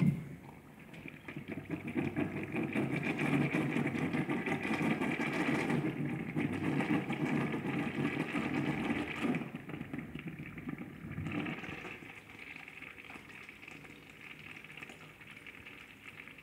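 Wall urinal flushed by its flush valve: a sharp click of the handle, then water rushing through the bowl for several seconds before dying down to a quieter trickle that tapers off.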